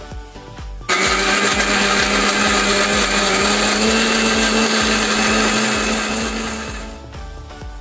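Electric mixer grinder with a stainless steel jar blending a thick milk-and-banana protein shake: the motor starts suddenly about a second in and runs loud and steady, its hum rising slightly in pitch midway, then winds down and stops near the end. Soft dance music plays before it starts and after it stops.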